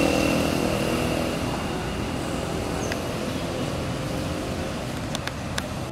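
A vehicle engine passing on the road, fading away over the first few seconds into steady outdoor background noise. A few sharp clicks come near the end.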